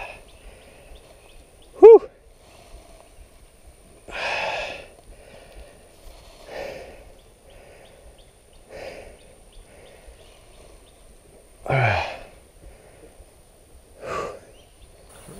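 A man's heavy breathing: about five loud, sighing exhales a couple of seconds apart, winded from exertion. A short, very loud sudden burst, the loudest sound, comes about two seconds in.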